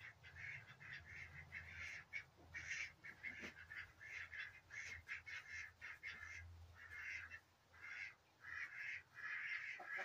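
A flock of domestic ducks quacking, rapid runs of quacks broken by short pauses, with a brief lull about three-quarters of the way in.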